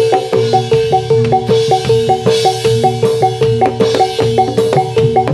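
Gamelan accompaniment for a jathilan trance dance: drums under a quick, repeating pattern of struck metal notes, with one note held steady beneath.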